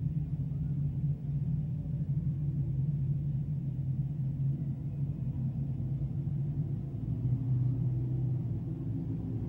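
A field of dirt-track sportsman modifieds with crate V8 engines running together at slow caution pace behind the pace truck, a steady low drone with no hard revving.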